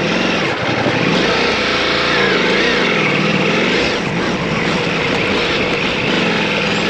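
Motorcycle engine running under way on a dirt track, its pitch rising and falling several times with the throttle.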